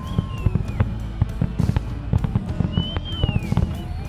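Fireworks going off in quick succession: dense low booms mixed with sharp cracks, and a few high whistles that bend in pitch.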